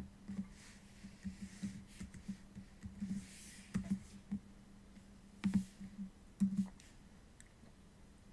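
A Rubik's Cube's faces being turned by hand: scattered plastic clicks and short scraping sounds, the sharpest about five and a half and six and a half seconds in, over a steady low electrical hum.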